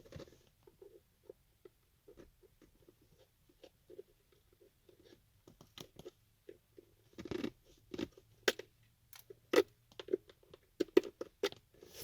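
Heated razor blade cutting the back off a small plastic retainer clip: irregular small crunches and clicks, louder and more frequent in the second half.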